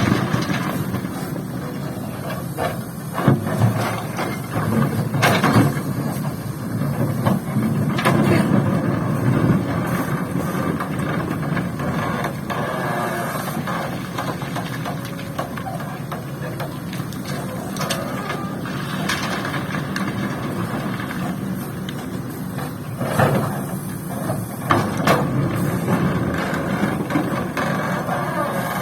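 Hydraulic excavator's diesel engine running steadily under load, with several sharp knocks and clatters scattered through, typical of material and the bucket striking a dump truck's bed.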